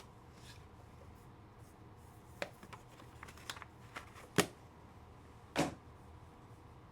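Football trading cards and packs being handled: a few short crinkles and clicks between about two and six seconds in, the loudest just past four seconds, over a faint steady hum.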